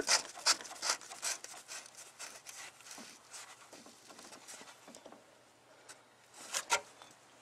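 Hard plastic oil filter cap being screwed by hand into its housing, a gloved hand rubbing and scraping on it in short strokes with each turn. The strokes fade over the first few seconds, and a couple of louder scrapes come near the end.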